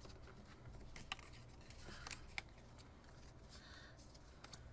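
Faint handling of Pokémon trading cards: cards sliding against each other as a stack is flicked through, with two small clicks, about a second in and about two and a half seconds in.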